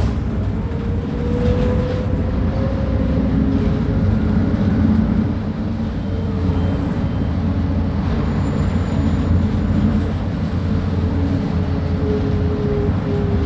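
Mercedes-Benz O500UA articulated bus with ZF Ecomat automatic gearbox under way, its diesel engine giving a steady low rumble. A faint whine rises slowly a second or two in and comes back near the end.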